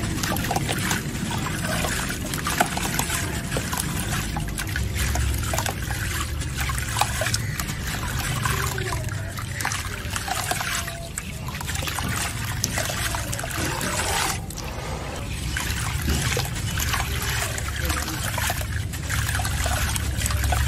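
Soaked gritty sand block crunching and crumbling in the hands, wet grit and muddy water dribbling and splashing into a basin of water, with many small crackles.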